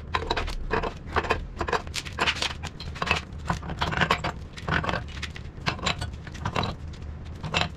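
Pipe wrench turning a threaded galvanized steel elbow into a water pump's discharge port: a run of irregular metal clicks and scrapes, two or three a second, as the jaw bites and is reset. A steady low hum runs underneath.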